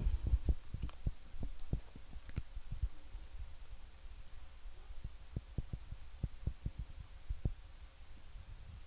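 Soft, irregular low taps and thuds of a pencil crayon sketching on paper, denser at the start and again past the middle.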